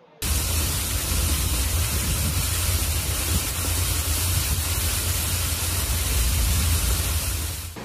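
Steady rushing noise of a heavy rainstorm with a deep rumble underneath. It cuts in abruptly just after the start and fades near the end.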